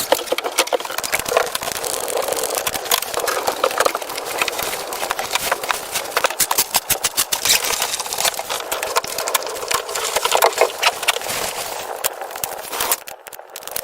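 Dry wood crackling and snapping: a dense, irregular run of sharp clicks that briefly drops quieter near the end.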